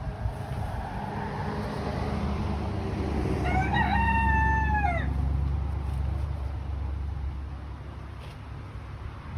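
A rooster crows once, a call of about a second and a half that ends in a long held note dropping at the end. A low rumble swells and fades underneath.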